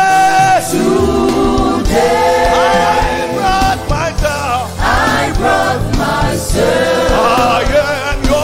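Gospel worship song performed live: a male lead singer and a group of backing vocalists singing together over instrumental accompaniment with a steady bass and regular beat.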